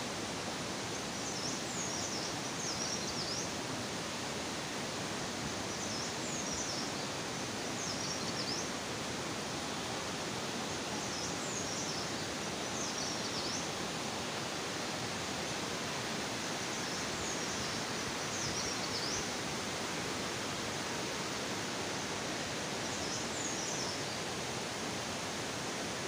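Steady, even rush of flowing water. High, short falling chirps from a bird come in pairs every five to six seconds.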